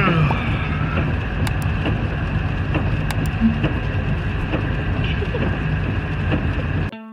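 Steady engine and road noise inside a moving vehicle's cabin, with the falling tail of a man's yawn at the very start.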